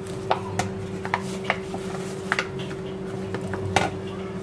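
Hands kneading a crumbly bread-crumb dough in a stainless steel bowl, with irregular clicks and taps as fingers knock against the steel, the loudest near the end. A steady low hum runs underneath.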